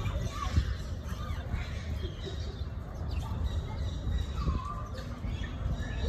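A few short, scattered bird calls and chirps, some gliding down in pitch, over a steady low rumble.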